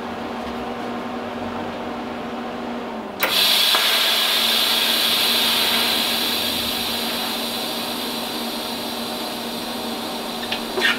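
TIG welding arc tacking a steel ring. After a low hum, the arc strikes suddenly about three seconds in with a steady bright hiss that runs on, slowly fading.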